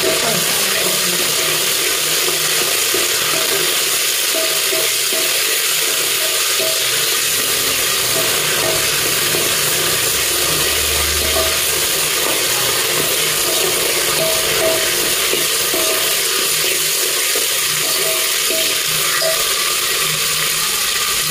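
Sliced onions sizzling steadily as they fry in oil in an aluminium pressure cooker, with a steel ladle stirring them against the pot.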